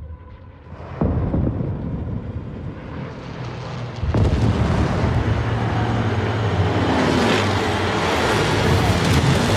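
Film sound design of warplanes passing overhead and explosions: a sudden heavy hit about a second in, then from about four seconds in a louder, sustained roar with a steady low engine drone underneath.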